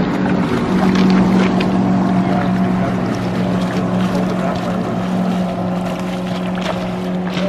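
Steady drone of a motorboat engine running on the river, with intermittent splashes from a hooked pink salmon thrashing at the surface.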